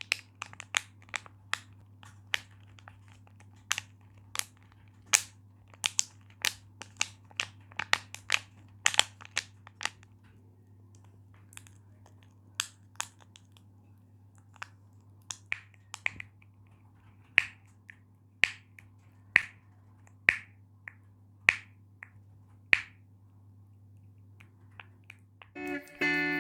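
Sharp plastic clicks from a homemade fidget toy cut from a water bottle being clicked, irregular, about two a second at first and sparser later. Guitar music starts just before the end.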